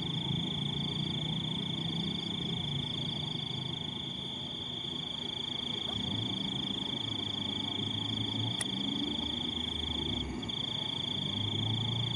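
Frogs croaking low under a steady, high-pitched insect whine that runs unbroken.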